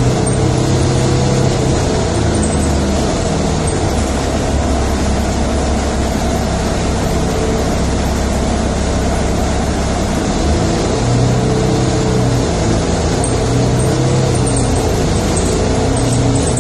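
Inside the cabin of a moving road vehicle: steady road and engine noise with a low engine hum, whose note shifts about ten seconds in.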